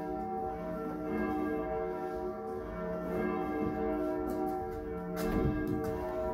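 Church bells ringing, several bells sounding together in long, overlapping tones, with a louder strike about five seconds in.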